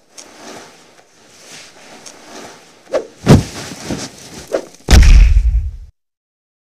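Cartoon fight sound effects: a few seconds of swishing, a sharp hit a little past three seconds and a smaller one after it. Then the loudest part, a heavy body-slam thud about five seconds in, which rumbles for about a second and cuts off.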